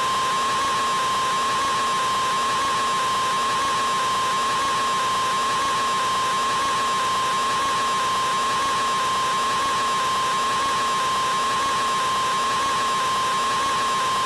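A man's scream, an open 'aaah' held on one unchanging high pitch with no breath or break, artificially stretched into one unbroken note.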